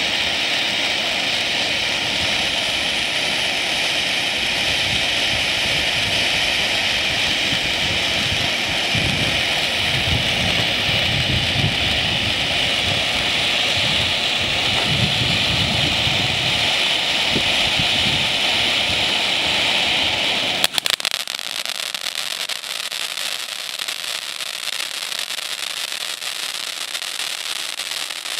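Ground fountain firework ('volcán') burning with a steady, jet-like hiss. About 20 seconds in there is a sharp pop, and it switches to dense crackling as the fountain throws crackling sparks.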